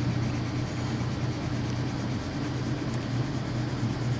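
Steady low rumble and hum of a subway train running, heard from inside the car.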